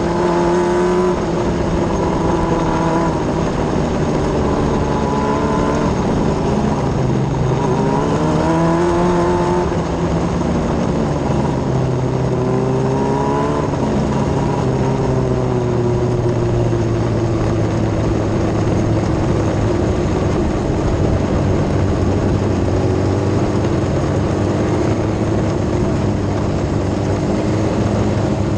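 Yamaha R6 inline-four motorcycle engine in a micro sprint car, heard onboard. Its revs rise and fall a few times in the first half, then hold steady at somewhat lower revs.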